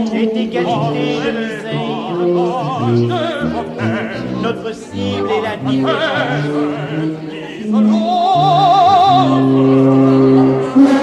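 Contemporary orchestral music: an operatic voice sings held, wide-vibrato notes over sustained low orchestral chords. A sudden loud orchestral attack comes right at the end.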